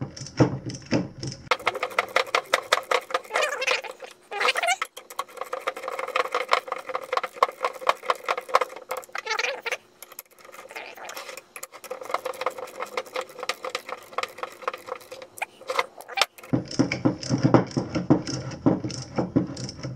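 Ratchet wrench clicking rapidly and continuously as the rear sprocket bolts are run down until they bottom out, with light metal rattling. The clicking starts about a second and a half in and stops suddenly about three seconds before the end.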